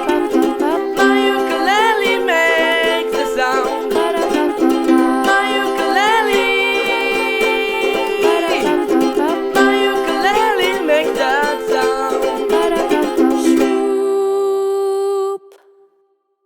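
Ukulele ensemble playing the song's closing bars, with a melody line over strummed chords. It ends on a held final chord that stops abruptly near the end.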